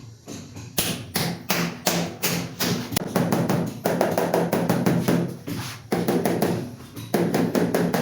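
Wall tiles being tapped as they are set in place: quick repeated taps, a few a second at first and coming faster from about three seconds in.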